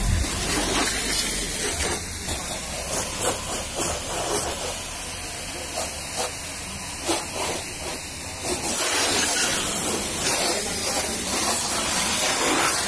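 High-pressure water jet from a pressure washer hissing steadily as it sprays onto a car's body. It softens for several seconds in the middle, then grows louder again.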